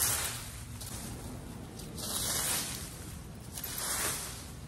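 Leaf rake with wire tines scraping and sweeping through dry leaves over bare dirt, in three strokes about two seconds apart.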